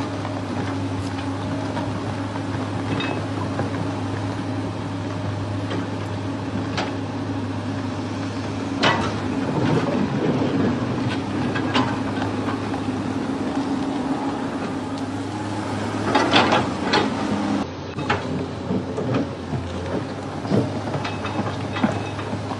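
A vehicle running with a steady low drone and scattered knocks and clatter, loudest about nine seconds in and again around sixteen to seventeen seconds.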